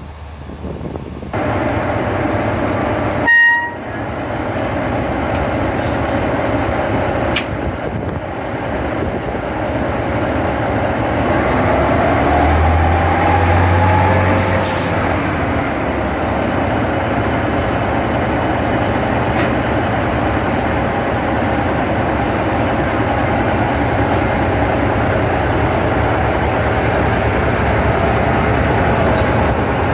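Diesel locomotive engine running steadily, with a short horn toot about three seconds in. Its note swells briefly around twelve to fifteen seconds in.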